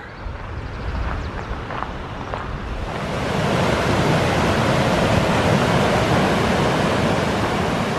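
Low wind rumble on the microphone at first. About three seconds in it gives way to the louder, steady rush of a spring-fed stream cascading down a rocky hillside channel.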